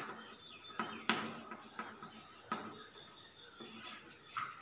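Chalk writing on a chalkboard: irregular sharp taps as the chalk strikes the board, with faint scratching between strokes.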